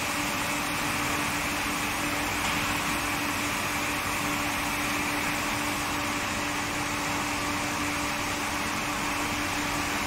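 Induction tube heat-treatment line running while a red-hot steel tube feeds through the heating coil: a steady machine hum with a constant low tone under an even hiss.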